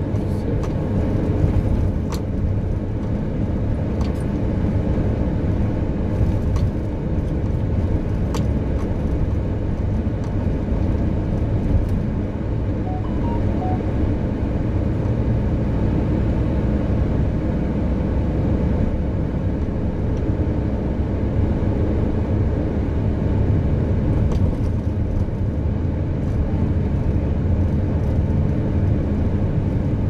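Steady road noise of a car driving on a dirt road: engine and tyres on the unpaved surface, heard from inside, with a few faint clicks or rattles.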